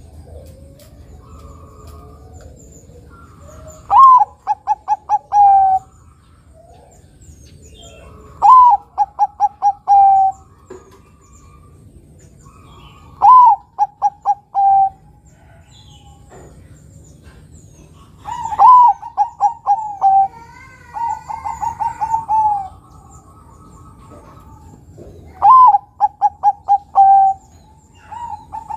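Zebra dove of the Bangkok song type (perkutut) cooing its song five times. Each phrase opens with a short rising note, then a quick run of short clipped coos, and ends on a longer held coo. The fourth phrase, about two thirds of the way through, runs on into a second, longer string of coos.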